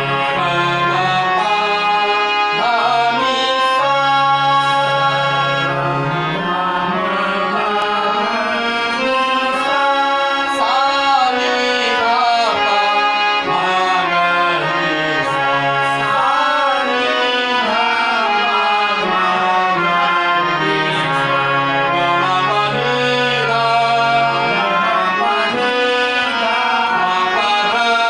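Harmoniums playing a melody in Raag Khamaj over a held low tonic note, with a man's voice singing gliding, ornamented phrases along with them.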